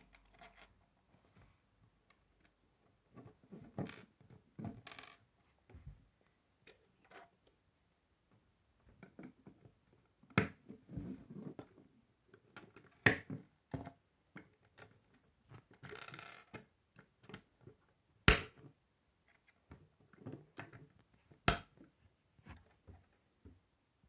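Plastic K'nex rods and connectors being handled and clicked together on a wooden table. There are scattered light clicks, four sharper clicks in the second half, and a brief rustle about two thirds of the way in.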